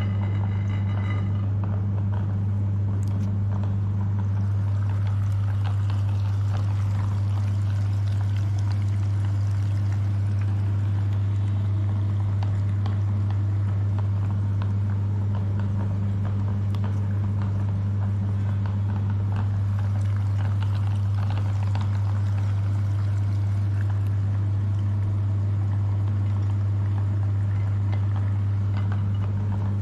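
Electric meat grinder motor running with a steady low hum, with faint scattered ticks over it as jelly is fed through.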